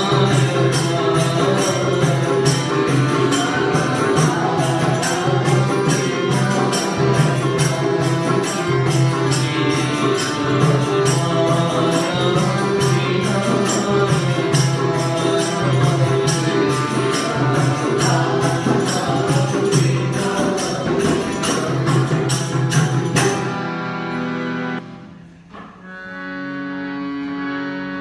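Devotional bhajan music: a fast, even percussive beat over sustained low drone notes. Near the end it breaks off, and after a brief dip a slower piece of held notes with no beat begins.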